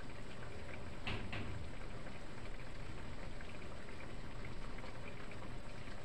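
Vegetables in broth simmering in a frying pan: a steady fine bubbling crackle, with two slightly louder pops about a second in.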